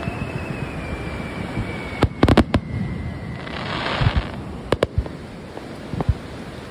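Fireworks display: sharp bangs of shells bursting, a cluster of several about two seconds in and single ones later. A thin whistle falls slightly in pitch before the first cluster, and a short hiss follows about four seconds in.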